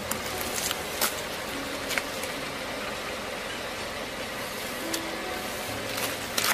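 A car engine running low as its tyre creeps over a row of firm green fruit, with a few sharp cracks in the first couple of seconds. Near the end, a louder burst of crunching and splitting as a fruit is squashed flat under the tyre.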